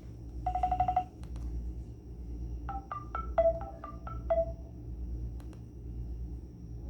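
Short snatches of electronic ringtone melody from a Nokia 130 mobile phone's speaker. About half a second in comes a quick run of rapid beeps, and around three to four seconds in a run of seven short notes with ringing tails. A few sharp clicks fall between them.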